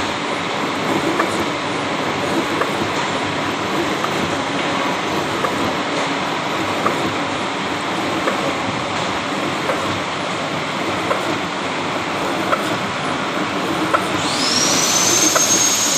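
Milling machine cutting gear teeth into a mild steel blank: steady cutting noise with scattered small sharp clicks. A high whine rises and levels off near the end.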